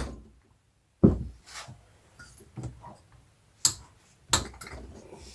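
Hammer tapping on the fasteners of a 1980 Yamaha XT250 engine to loosen them: about five sharp knocks, the loudest about a second in, with two more loud ones near the end.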